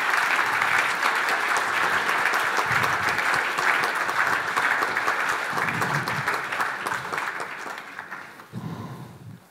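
Audience applauding, the clapping fading away about eight seconds in.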